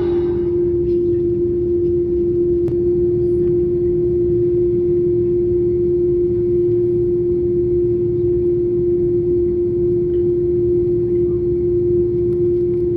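Steady cabin drone inside an Airbus A330-300: a constant hum with one strong unchanging tone over a low rumble of engines and air conditioning.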